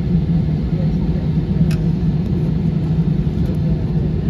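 Steady low rumble inside the cabin of an Airbus A320-216 taxiing, its CFM56 engines at idle, with one faint click a little under two seconds in.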